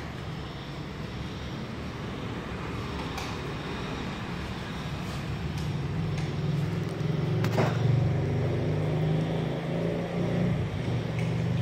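Domestic cat purring: a steady low rumble that grows louder about six seconds in, when it is heard up close. A single brief click sounds a little later.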